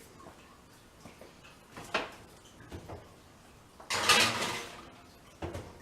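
Kitchen handling sounds: a short knock about two seconds in, a louder scraping slide around four seconds, and a thump near the end, the kind made by an oven door and a baking tray.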